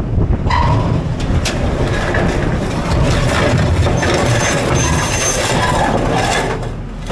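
Heavy vehicle engine running under load as a metal bin loaded with scrap steel engine blocks is dragged across the ground, with scraping and a few sharp knocks.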